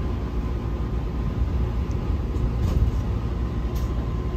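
Steady low rumble of the train running, heard from inside the passenger cabin, with a faint steady hum and a few faint clicks.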